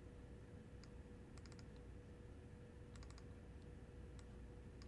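Faint computer mouse clicks, some in quick little groups, as folders are opened in a file dialog, over a low room tone with a faint steady hum.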